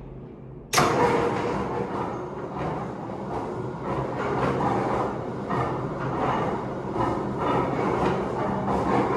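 Tea-processing factory machinery: a steady low hum, then about a second in a much louder mechanical clatter starts abruptly and keeps running with a rough, uneven rhythm.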